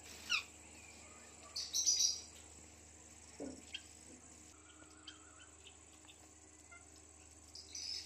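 Indian ringneck parakeets calling: short chirps, then a loud harsh squawk about two seconds in, scattered softer chirps, and another squawk near the end.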